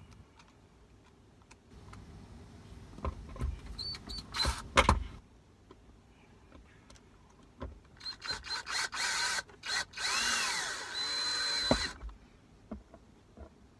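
DeWalt 20V cordless drill driving screws into the armrest's plastic base: several short trigger bursts about eight seconds in, then a longer run whose pitch rises and falls, stopping near twelve seconds. Earlier, about halfway through, there is handling rustle and a sharp knock, the loudest sound.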